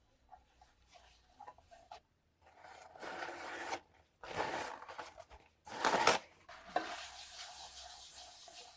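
Light clicks and taps, then rubbing and scraping strokes of about a second each, followed by steadier rubbing, as in filing or sanding during restoration work.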